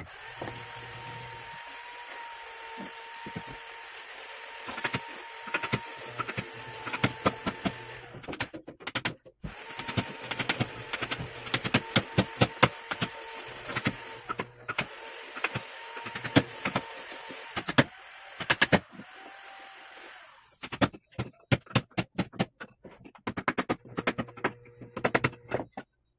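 Wood chisel struck over and over with a hammer as it is driven into a wooden workpiece: sharp knocks in quick, irregular runs. Under them a steady machine hum runs and cuts off about two-thirds of the way through, while the knocking goes on.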